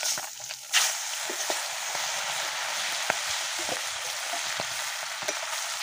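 Turmeric-coated fish pieces being fried in hot oil in a kadai: a loud hiss under a second in as a piece goes into the oil, then steady sizzling with scattered pops.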